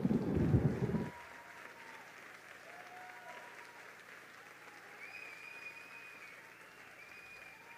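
Audience applauding, with a few faint high cheers, after a deep rumbling sound cuts off about a second in.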